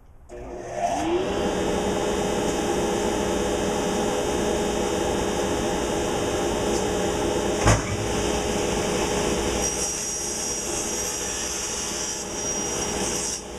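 Delta table saw switched on, its motor whining up to speed within about a second and then running steadily while a board is cut. A sharp knock about eight seconds in.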